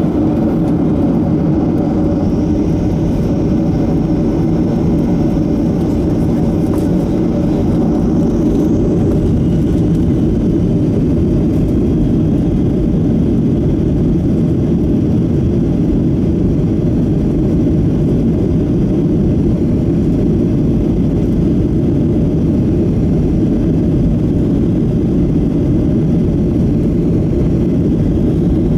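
Steady cabin noise of a Boeing 737-700 moving on the ground: the hum of its CFM56-7B jet engines and the rumble of the rolling airliner, heard from a window seat over the wing, with a faint high whine above it.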